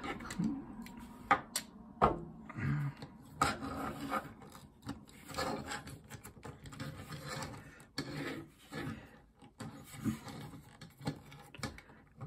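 Plastic Transformers Kingdom Tigatron toy figure being handled and moved about on a wooden desk: rubbing and scraping of plastic under the fingers and on the wood, with scattered clicks and taps of its parts.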